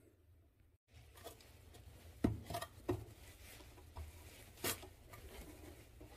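A few sharp clicks and knocks from a gloved hand working the metal shut-off valve on the water line beside a water meter, the loudest about two seconds in and another near the five-second mark, over a steady low hum.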